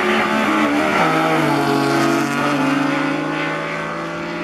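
Two drag-race cars launching side by side and accelerating hard down the strip. Their engines run at high revs, and the engine note changes pitch in steps as they shift gear.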